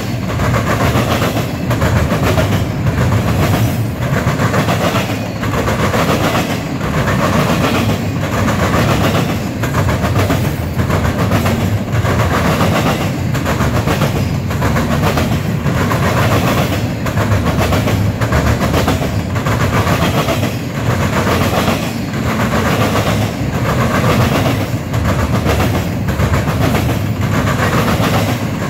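Double-stack intermodal train's well cars rolling past, steel wheels rumbling on the rails with a loud, steady, rhythmic clickety-clack as the wheels pass.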